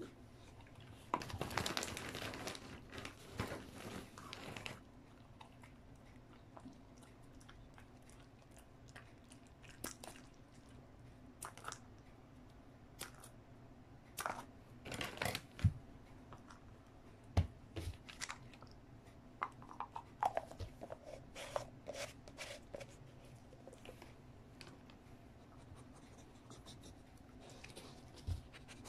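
Crinkling and tearing for a few seconds, like a treat packet being opened, then scattered sharp snips and clicks of scissors cutting a dog treat into pieces.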